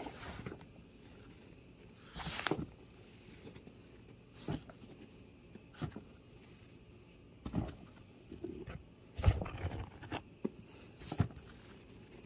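Scattered rustles and soft knocks of handling and movement on a carpeted floor: about nine short noises a second or two apart, with quiet between, the loudest about nine seconds in.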